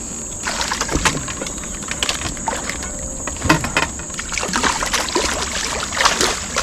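Scattered knocks, clicks and water splashes as a just-landed smallmouth bass is handled in a fishing kayak, over a steady high-pitched hiss.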